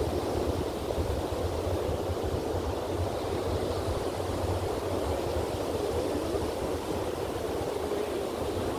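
Ocean surf breaking, a steady wash of noise with a low, uneven rumble underneath.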